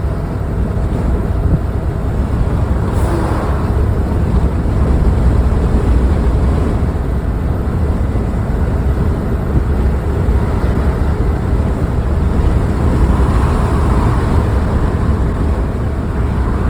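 Steady rumble of wind and road noise from a vehicle driving at speed on a highway, with strong wind buffeting the microphone.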